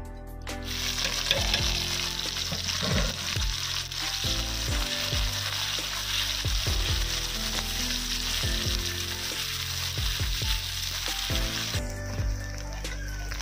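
Sliced onions frying in hot oil in a black iron wok, a steady sizzle as a spatula turns them, over background music. The sizzle starts about half a second in and drops away shortly before the end.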